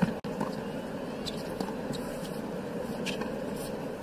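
Murmur of a large stadium crowd during a tennis rally, with a few sharp racket-on-ball hits as the ball is struck back and forth.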